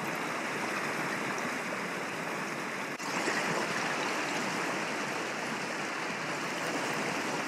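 Steady rushing noise, even and unbroken apart from a brief dip about three seconds in.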